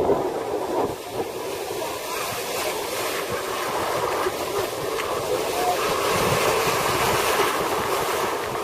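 Heavy storm surf breaking and churning around waist-deep bathers: a steady rush of foaming water that grows a little louder about halfway through.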